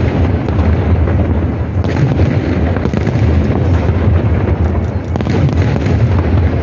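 Aerial firework shells bursting in a dense, continuous barrage: an unbroken rumble of booms, with sharper cracks standing out about two, three and five seconds in.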